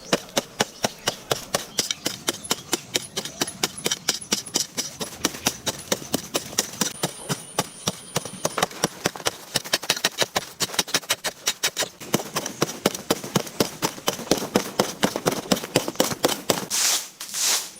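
A fast, steady series of sharp knocks, about four a second, with a few softer swishing sounds near the end.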